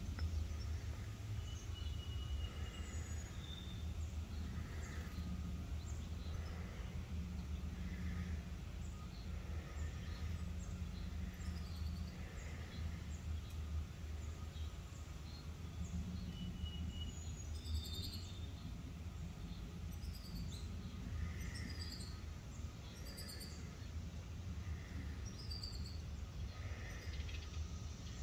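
Songbirds calling over a steady low hum of outdoor ambience. A soft note repeats about every second and a half, with a brief thin whistle twice. Past the middle comes a run of short, high, falling chirps.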